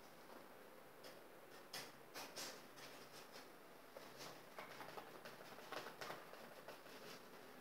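Faint, short scratchy strokes of a paintbrush working paint onto a stretched canvas, a scattering of soft brushing sounds beginning about a second in over quiet room tone.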